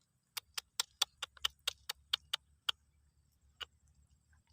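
A quick run of about a dozen sharp clicks, roughly four or five a second, then a single click a second later.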